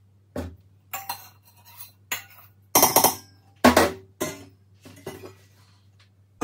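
Stainless steel mixing bowls clanking and ringing: a string of separate metal knocks as one bowl is tapped against and emptied into another, then handled and set down, with the two loudest knocks about three seconds in.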